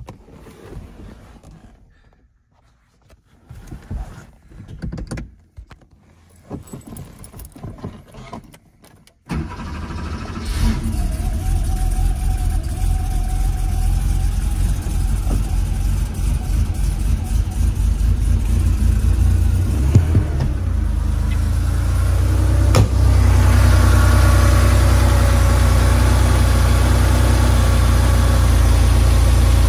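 The air-cooled 3.2-litre flat-six of a 1984 Porsche 911 Carrera is cold-started about nine seconds in: it catches abruptly and settles into a steady idle near 1,100 rpm. Before that there are only faint scattered handling noises. The idle is a little louder in the last several seconds, heard from the open engine lid.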